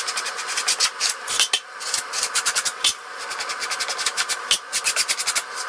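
Flat plastic trowel scraping and smoothing Kerdi-Band into wet thin-set on foam Kerdi-Board: a quick, uneven run of short rubbing strokes.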